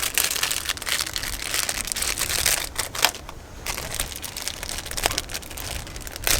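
Plastic packaging crinkling and rustling as it is handled and opened, with small irregular crackles and a brief pause about halfway through.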